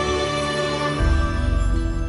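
Background music of sustained notes, moving to a new, fuller low note about a second in.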